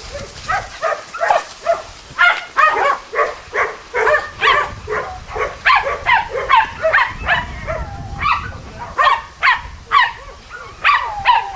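Jagdterriers barking at a wild boar at bay: high, yapping barks in a rapid, unbroken run, about two a second.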